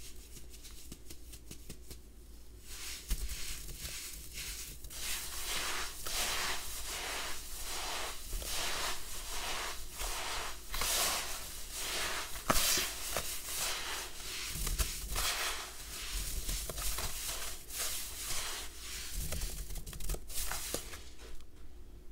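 Hands squeezing and kneading damp red sand in a basin: a grainy crumbling rustle with each squeeze, about two strokes a second, fainter for the first couple of seconds and again near the end, with one sharp click midway.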